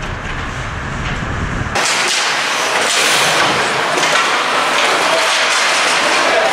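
Ice hockey game noise: a steady hiss with a few sharp sounds in it. About two seconds in, a low rumble drops out at once and the sound turns brighter and a little louder.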